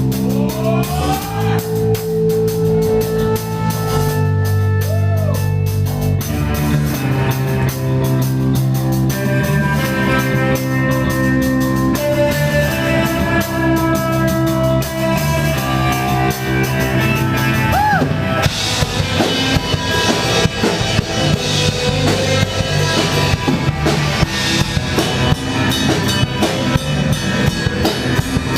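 Rock band playing an instrumental intro live: sustained guitar and bass notes over a drum kit, with the drums and cymbals coming in fuller and harder about 18 seconds in.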